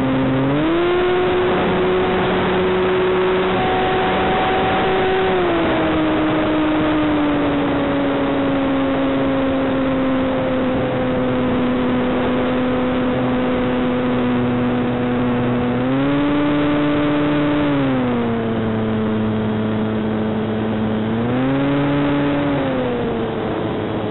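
Electric motor and propeller of a ParkZone Sukhoi SU-29MM RC plane heard from its onboard camera: a steady whine that jumps up in pitch as the throttle opens for takeoff just under a second in, eases down around five seconds in, then rises and falls twice more, over a constant rush of air.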